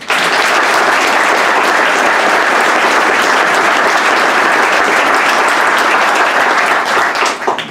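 Audience applauding. The applause starts all at once, holds steady, and thins out into a few last claps near the end.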